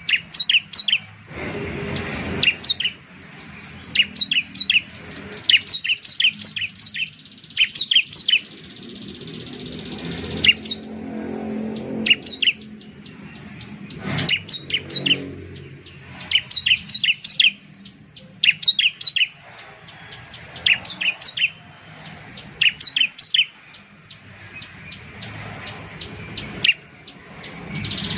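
Bar-winged prinia (Prinia familiaris) singing in loud, sharp, high-pitched phrases of several rapid notes, repeated every second or two. A low rumble of background noise swells and fades underneath, most noticeably a couple of seconds in and again around the middle.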